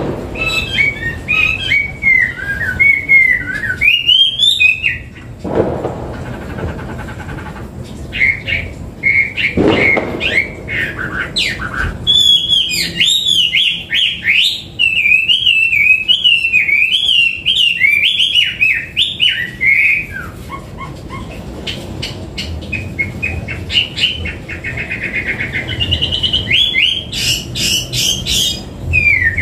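Hwamei (melodious laughingthrush) singing a long run of varied, rapidly changing whistled phrases, with a pause of a few seconds early on and a brief lull past the middle.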